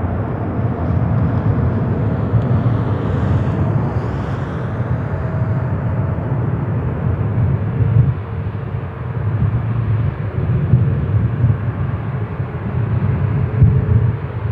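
Jet airliner engines making a loud, steady rumble, with faint engine tones drifting slightly in pitch above it.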